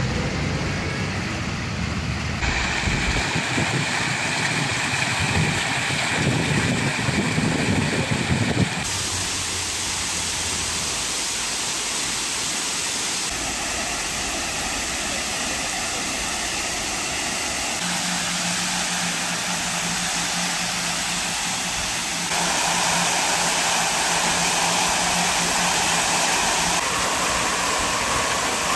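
Fountain jets splashing into their basins: a steady rush of falling water whose character shifts abruptly several times. A low rumble runs under it for the first several seconds.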